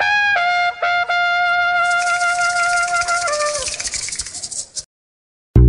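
Short brass intro jingle: a trumpet-like horn plays a few quick notes, then holds one long note that steps down and slides down in pitch near the end, with a hissing percussion joining about two seconds in. It cuts off suddenly, and after a brief gap electronic music with a heavy beat starts right at the end.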